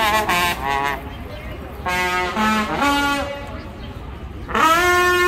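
A brass instrument playing short phrases of held, steady notes. One phrase is at the start, a few notes come around two to three seconds in, and a loud higher held note starts near the end.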